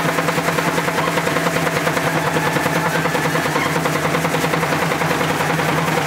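A drum played in a fast, even roll of many strokes a second, with a steady low ring underneath.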